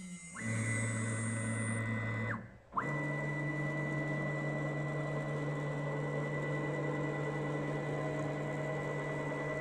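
ERS8080 CNC router's axis drive motors whining steadily as the gantry makes rapid travel moves. One move starts about half a second in and cuts off after roughly two seconds. After a brief gap, a second, longer move starts at a different pitch and holds steady.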